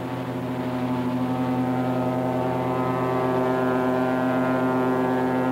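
Tugboat horn sounding one long, steady blast that grows a little louder after about a second.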